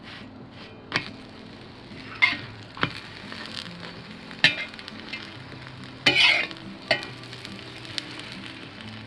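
Aloo-cheese paratha sizzling in oil on a hot iron tawa, with a steel spatula clinking and scraping against the pan about seven times; the loudest is a longer scrape about six seconds in.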